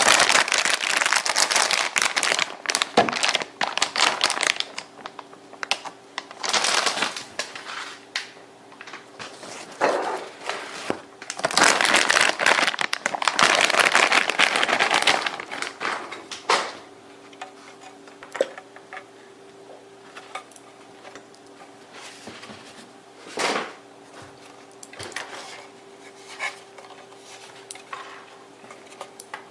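Packaging being handled while a graphics card is unpacked: loud bursts of rustling and crinkling, strongest in the first half, then scattered light clicks and knocks over a steady low hum.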